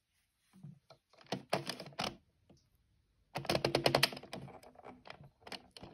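Plastic needles of a circular sock-knitting machine clicking and clattering as they are pushed down by hand to take the stitches off. Scattered clicks, then a quick rattling run of clicks about halfway through.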